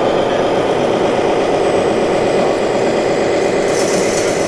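1/14-scale radio-controlled model trucks and construction machines running: a steady mechanical drone, with a higher hiss joining about three and a half seconds in.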